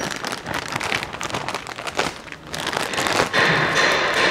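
Thin plastic bag crinkling and rustling as a new oil pump is unwrapped from it by hand, a dense run of small crackles that grows louder and more continuous near the end.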